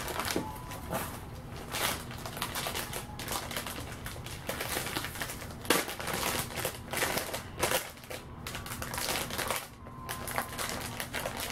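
Silver anti-static bag around a graphics card crinkling as it is handled, in a string of irregular crackles.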